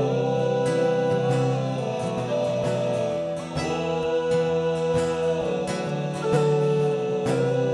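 Celtic folk instrumental: a whistle-type wind instrument plays three long held notes, each slid up into from below, over plucked and strummed acoustic strings keeping a steady beat.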